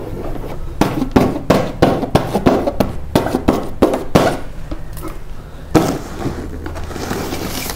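Paper sticker being peeled off a paper sheet: a quick run of sharp crackles and tearing, with one louder crack about six seconds in.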